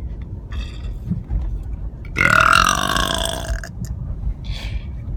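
A person's long, loud burp lasting about a second and a half, its pitch sagging slightly toward the end, about two seconds in.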